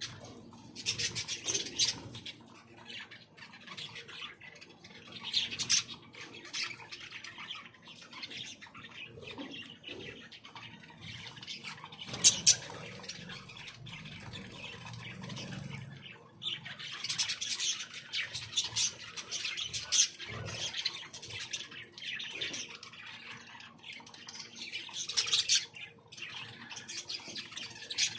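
A flock of aviary birds chirping and squawking in bursts of quick, sharp calls, with one loud, sharp call about twelve seconds in.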